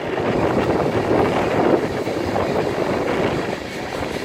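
Freight train of ballast hopper cars rolling past, a steady rumble with a busy clatter of steel wheels on rail.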